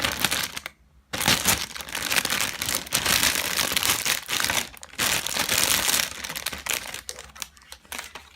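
Plastic packaging of a model kit crinkling as it is handled, with a short pause about a second in, then steady crinkling that thins out near the end.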